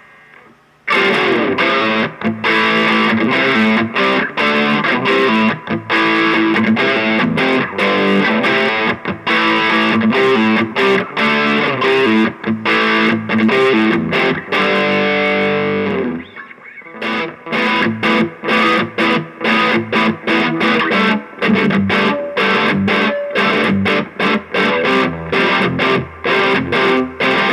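Electric guitar played through an MV Electronics Shredhead distortion pedal into a cheap amplifier, heavily distorted. Sustained chords and notes start about a second in. After a brief drop at about sixteen seconds, the playing turns to choppy stop-start riffing.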